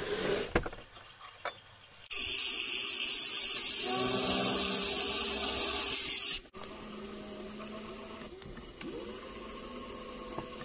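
Metal bar stock rattling in a drawer as it is pulled open, then a drill bit in a machine chuck boring into a metal block: a loud, steady, hissing whine that cuts off suddenly about six seconds in, followed by a quieter steady running sound.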